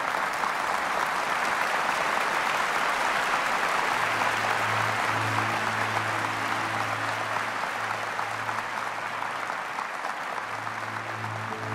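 Large hall audience applauding steadily. From about four seconds in, low sustained music notes come in underneath the clapping.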